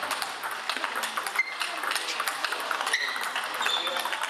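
Table tennis balls clicking irregularly off bats and tables in quick, overlapping strokes, with a few short high squeaks.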